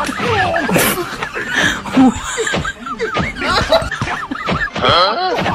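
Snickering laughter over background music, a dubbed comedy soundtrack rather than sounds from the room.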